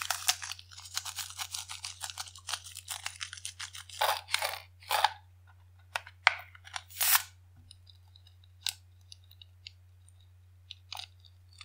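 Small scissors cutting open tiny rubber balloons: a dense run of quick crackling crunches for the first three seconds or so, then about half a dozen separate sharp snips, then a few faint clicks.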